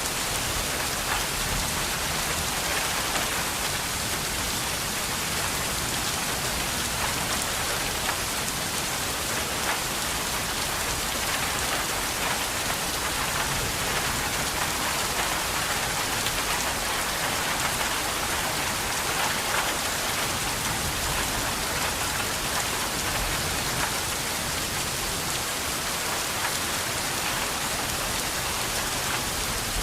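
Steady rain falling on a surface, a dense, even patter of drops that does not change.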